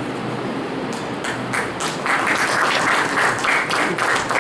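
Audience applauding, starting about a second in and growing fuller from about two seconds in.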